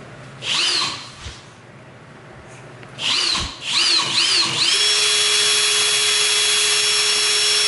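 Child's toy power drill whirring: a short rev about half a second in, a few quick revs a little after three seconds, then running steadily with a high whine from about five seconds in.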